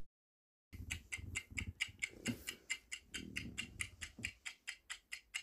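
Clock-ticking sound effect of a quiz countdown timer: rapid, even ticks, about five a second, starting just under a second in.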